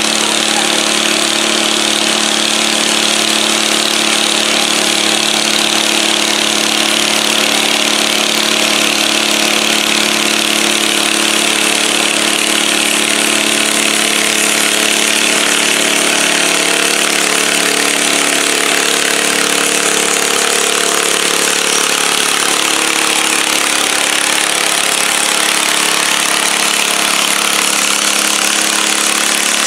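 Modified garden pulling tractor engines running loudly and steadily.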